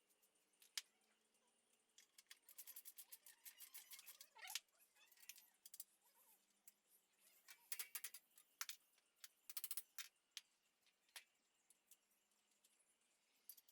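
Faint, scattered clusters of light clicks and clinks from small parts and hand tools being handled.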